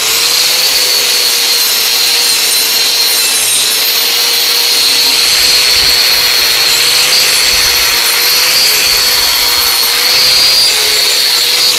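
4-inch angle grinder with a wire brush running steadily at full speed, scrubbing caked grass and rust off a steel lawn mower blade: a steady high whine over a harsh scratchy rasp, beginning to wind down at the very end.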